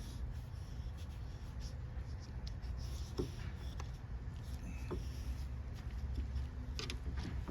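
Light scratching and rustling from hand work, with a few small clicks, over a steady low hum.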